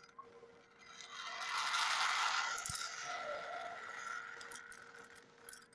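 Rope running through a metal pulley and carabiners as a rider on a rope river-crossing line is hauled in to the anchor: a rushing scrape that swells for about three seconds, with light metallic clinks of the rigging.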